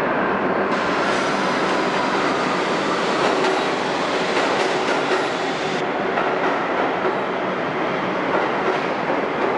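R62 subway train on the 1 line pulling out of an underground station and running away into the tunnel: a steady, loud rumble of wheels on rails that sounds brighter and hissier from about one to six seconds in.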